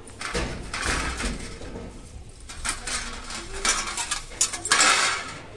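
Stainless-steel puja plates and a small steel bowl clinking and scraping as they are handled and moved about, in irregular bursts. The loudest clatter comes near the end.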